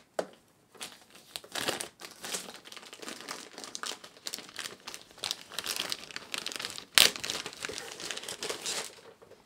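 Crinkling and rustling of a metallised anti-static bag being handled and pulled open to free the device inside, with one sharp click about seven seconds in.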